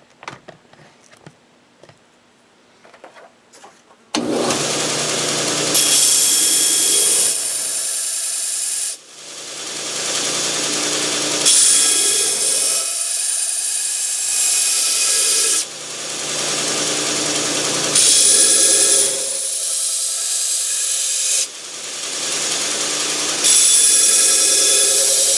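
Belt sander starting up about four seconds in, with a steel knife blade pressed against its coarse 36-grit belt in repeated spells; each spell brings a harsh, high grinding hiss over the running machine, with short lulls between them as the blade is lifted off. A few light clicks before the sander starts.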